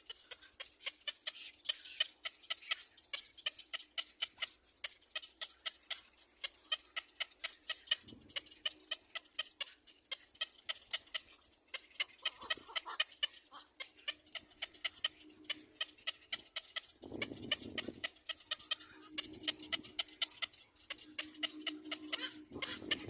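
Baby bird chirping to beg for food, a rapid run of short, high-pitched calls several times a second, with a few brief lower sounds in between.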